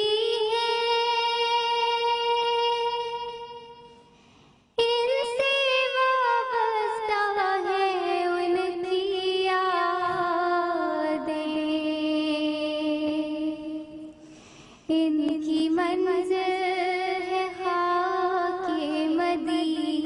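A girl's voice singing a naat unaccompanied, holding long, wavering notes. It fades away twice, about four seconds in and again about fourteen seconds in, and comes back suddenly each time.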